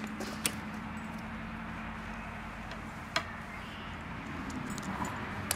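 A steady low hum under even background noise, with three brief sharp clicks spread across it.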